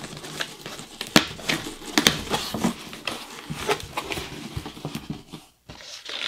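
Cardboard shipping box being handled and opened: flaps pulled back and scraped, with rustling and several sharp knocks, the loudest about a second in.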